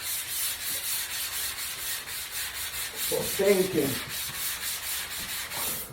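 Small hand sanding block rubbed back and forth over patched drywall, a scratchy rasp at about three to four strokes a second.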